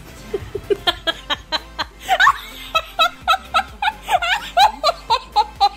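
A person laughing hard in quick, repeated bursts, about four a second, getting stronger about a second in, over background music.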